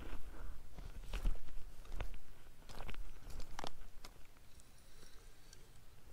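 Footsteps crunching on loose rock and gravel, several separate steps about a second apart, fading to faint ticks near the end.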